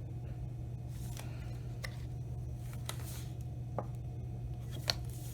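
Pages of a thick handmade collage book being handled and turned: a few light clicks and taps of card and paper, over a steady low hum.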